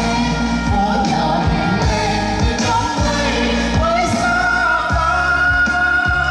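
Vietnamese pop song: a singer's voice over a band with a steady drum beat, holding one long note through the last part.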